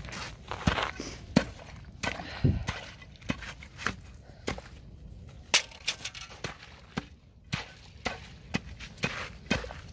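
A long metal ice bar jabbed repeatedly into thin shore ice. The strikes come unevenly, about one or two a second, each a sharp chop with crunching and cracking as the ice breaks up.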